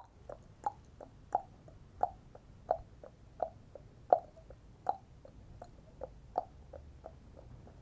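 Tongue clicks made by mouth to imitate a horse's hoofbeats: a steady clip-clop of about three clicks a second, alternating louder and softer.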